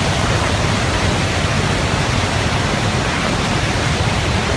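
Dam-failure outburst flood: a muddy torrent carrying debris, rushing past with a loud, steady noise of churning water.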